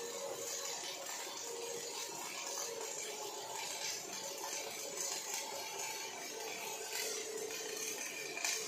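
Robotic MIG welding arc from an OTC welding robot, running steadily with a dense, even hiss, under a faint wavering hum.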